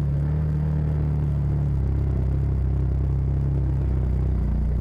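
Side-by-side UTV engine running steadily under way on a trail, a constant low engine hum with only slight changes in pitch.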